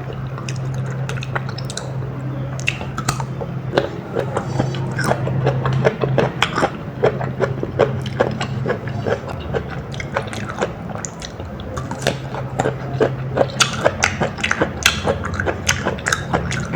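Close-miked chewing of a mouthful of food, with many quick wet mouth clicks and smacks coming faster about halfway through, over a steady low hum.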